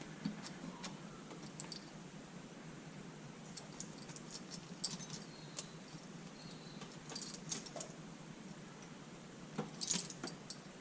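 Faint light metallic clicks and rattles in small scattered clusters from a motorcycle cam chain being handled and pulled up through the cylinder, the loudest cluster near the end.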